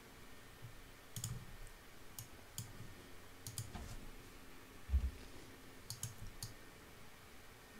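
Scattered clicks of a computer mouse and keyboard, a few in quick pairs, with one dull low thump about five seconds in.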